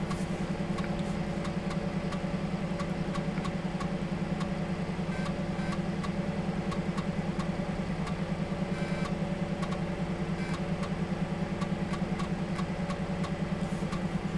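Emulated Amiga floppy drive loading a disk image: a steady, pulsing drive hum with regular light clicks of the head stepping as the program loads at the original drive speed.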